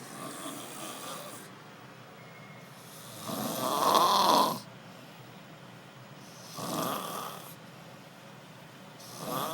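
A person snoring, one heavy snoring breath about every three seconds, with the one about four seconds in much louder than the others.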